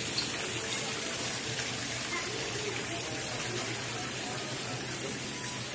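Water splashing steadily down an indoor artificial rock waterfall, with faint chatter of voices in the background.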